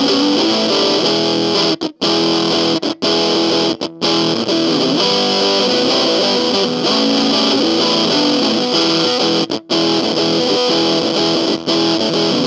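Electric guitar played through a Cat Box Customs Bean Machine effects pedal: a distorted tone with sustained notes and chords. The playing stops dead for a moment four times, about two, three, four and nine and a half seconds in.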